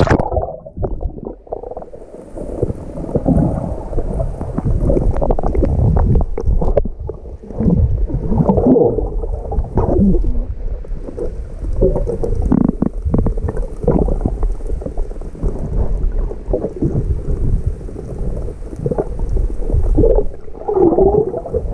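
Water sloshing and gurgling around a swimmer's body and a microphone at the water's surface, with irregular splashes and knocks from the swimming strokes.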